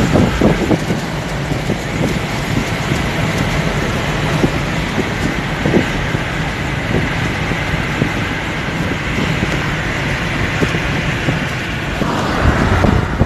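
Steady road and engine noise of a moving car, heard from inside the cabin, with a brief rising tone near the end.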